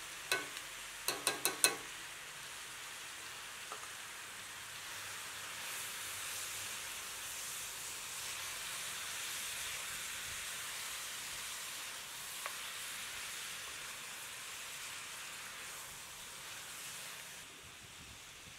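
Food frying in a hot pan, a steady sizzle that grows louder through the middle and eases near the end. A quick run of about four ringing clinks comes about a second in, like a utensil striking the pan.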